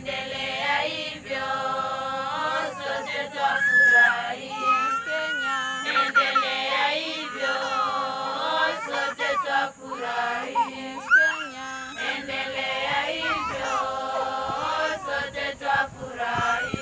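A group of voices singing together in held, unison notes, phrase after phrase with short breaks between.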